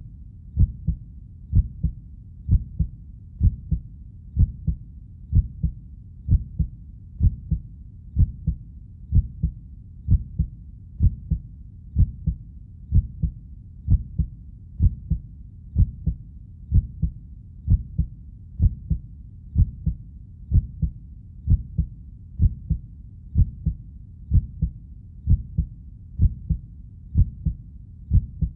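Heartbeat: a steady low double thump, lub-dub, repeating evenly about once a second.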